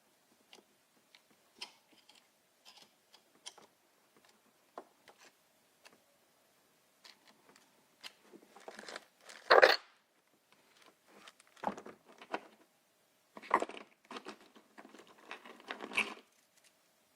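Handling noises: scattered light clicks and irregular rustling and crinkling, with a louder rustle about halfway through and more near the end.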